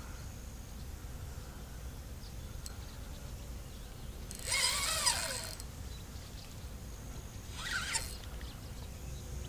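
Fishing reel's drag screeching in short bursts as a hooked fish pulls line off: a loud burst about halfway through and a shorter one near the end, over a steady low rumble of wind on the microphone.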